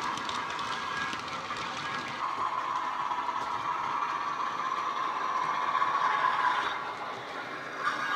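Model Bachmann Class 47 diesel running with its DCC sound decoder playing a Sulzer diesel engine sound through small speakers, with the light clicking of model wagon wheels on the track. The sound is thin and mid-pitched, with little bass.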